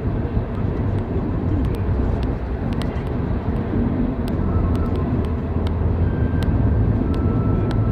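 Road and engine noise heard from inside a moving car: a steady low rumble with scattered light clicks.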